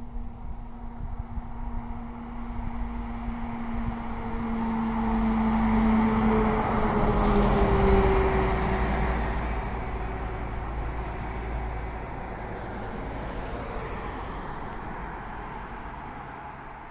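Iveco Crossway 15 LE Line diesel bus approaching and passing close by: engine and tyre noise that grows louder, with a steady hum whose pitch drops as the bus goes past about halfway through, then fades as it drives away.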